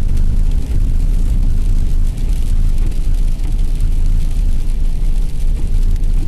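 Steady low rumble of a vehicle's engine and tyres heard from inside the cabin while driving on slushy, icy roads.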